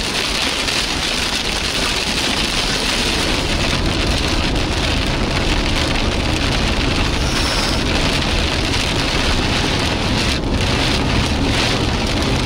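Heavy rain hitting a moving car's roof and windscreen, heard from inside the cabin as a steady loud hiss mixed with wet-road tyre noise, with a few sharper hits about ten seconds in.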